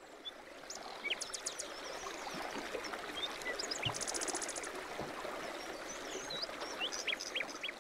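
Running stream, fading in over the first second or so, with birds chirping over it. A short, rapid, very high trill comes about four seconds in.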